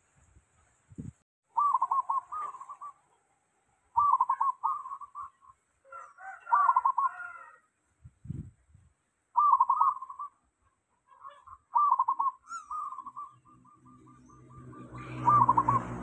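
A zebra dove (perkutut) cooing in its song, about six separate phrases a second or two apart, one of them trailing off in a run of short rolling notes. A low rumble swells near the end.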